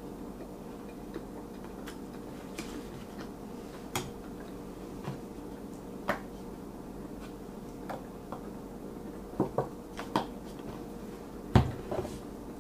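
Quiet table-eating and handling sounds: a plastic ketchup squeeze bottle being used, with scattered small clicks and taps. A few come close together a little before the end, then a louder knock, over a steady low hum.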